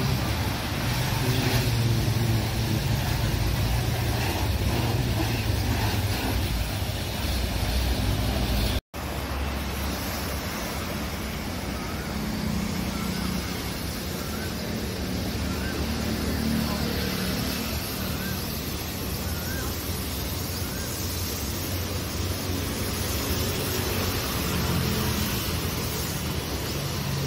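Water spraying from a hose spray gun onto a car's body and glass: a steady hiss. It cuts out for a moment about nine seconds in.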